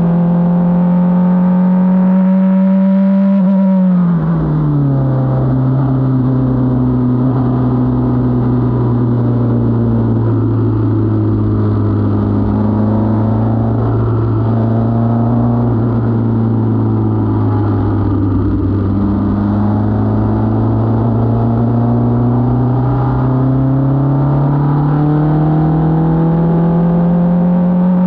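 Onboard sound of an F4 open-wheel race car's engine under load. The pitch is high at first, drops sharply about four seconds in as the car slows for a corner, wavers at the lower pitch through the corner, then climbs steadily near the end as the car accelerates again.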